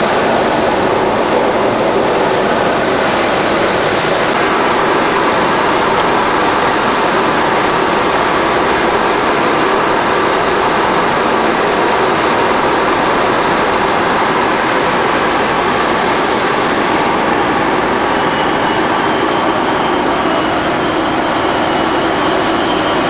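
Shrink-wrapping packaging machine running: a steady, loud rush of air and machine noise from its heat tunnel. From about three-quarters of the way through, a few faint high steady tones join it.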